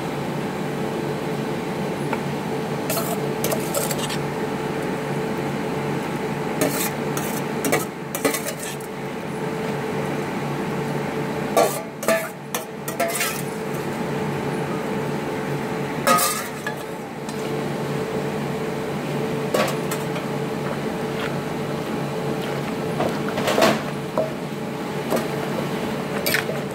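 Wooden pestle knocking and scraping in a clay mortar as boiled bamboo-shoot strips are pounded and mixed, with irregular thuds spaced a few seconds apart. Near the end a metal spoon stirs and scrapes in the mortar. A steady hum runs underneath.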